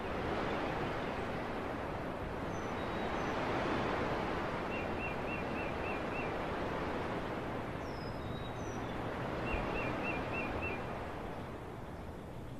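Outdoor ambience: a steady rushing noise with birds calling over it, twice a quick run of about five short notes, and a few thin high chirps.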